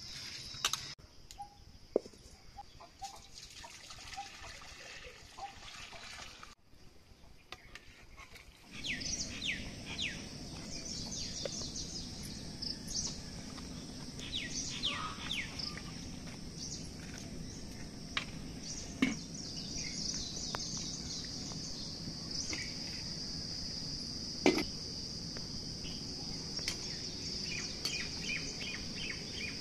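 Steady high-pitched insect drone with birds chirping over it, and a few sharp clinks of metal cooking utensils; the insect drone drops out for several seconds near the start.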